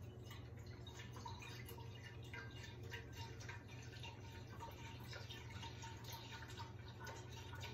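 Chicken broth trickling and dripping slowly from a carton into a metal stockpot, faint and irregular, over a steady low hum.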